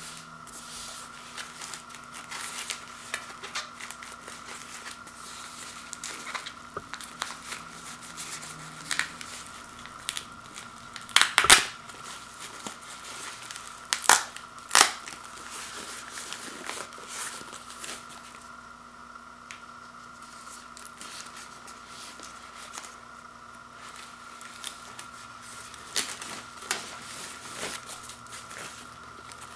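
Foam-sheet and plastic packing wrap being unwrapped and handled by hand: continuous crinkling and rustling, with a few sharper crackles and knocks, the loudest around the middle and again near the end.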